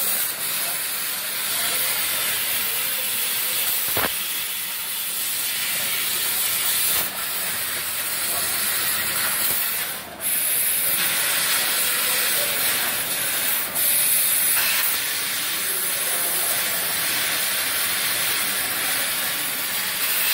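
Laser cutting machine cutting sheet metal, a steady loud hiss of gas jetting from the cutting head. The hiss dips briefly about seven, ten and fourteen seconds in, with a sharp click about four seconds in.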